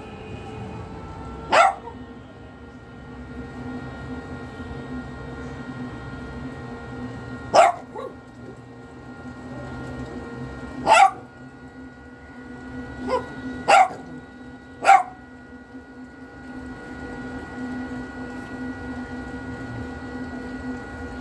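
Japanese Spitz barking: six short single barks, the first few spaced several seconds apart, then three in quick succession.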